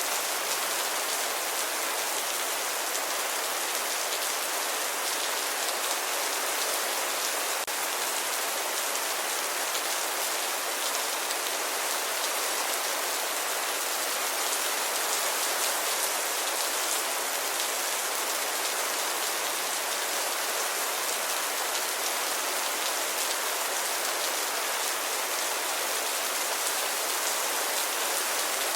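Steady rainfall: an even hiss of rain falling on a surface, with many fine drop patters and no thunder.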